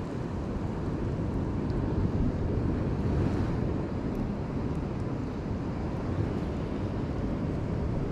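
Wind rumbling steadily on the microphone over the wash of sea surf breaking on the rocks in a heavy swell.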